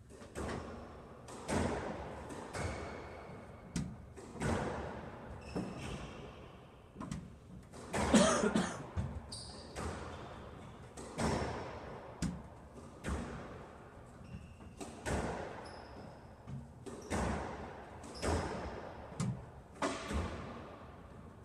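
Squash rally: the ball struck by rackets and smacking off the court walls about once a second, each hit echoing in the enclosed court, with short high squeaks between hits, typical of shoes on the court floor.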